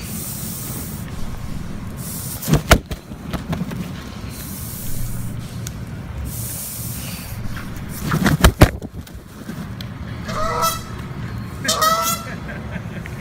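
Canada goose defending its nest: hissing with its bill open, then two short honks a little over a second apart near the end. Two sharp knocks, the loudest sounds, come about a quarter of the way in and again past the middle.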